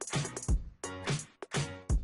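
Background music with a steady electronic drum beat.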